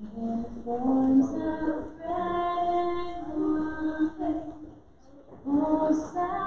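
Slow hymn sung during Mass, with long held notes that step from one pitch to the next and a short break for breath about five seconds in.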